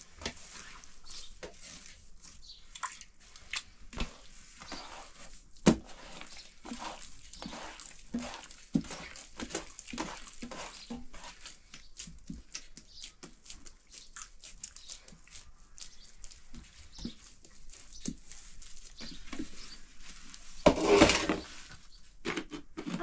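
Hands kneading bread dough in a large metal basin: irregular soft slaps and squelches, with a few sharper knocks. Near the end a louder rushing noise lasts about a second.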